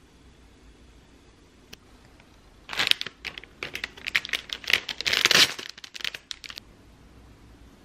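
Clear plastic packaging crinkling in quick crackles as it is handled. The crinkling starts about a third of the way in and lasts about four seconds.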